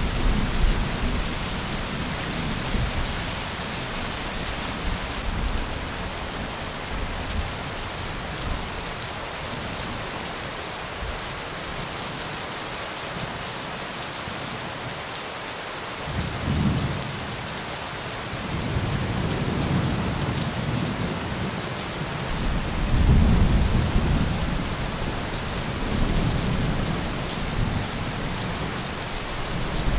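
Steady rain with low rolls of thunder coming and going, a lull in the middle, and the loudest rumble about three-quarters of the way through.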